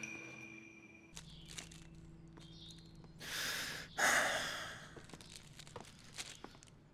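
Background music fading out, then a person's breath drawn in and let out in an audible sigh about four seconds in, with a few small handling clicks.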